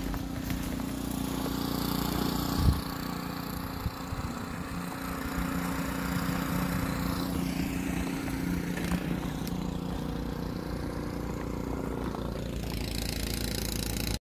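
Steady hum of a small engine running at an even pitch, with one sharp knock nearly three seconds in.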